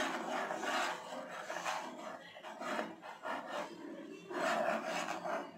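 A steel spoon stirring sago pearls in water in an aluminium pot, scraping against the metal in several uneven strokes.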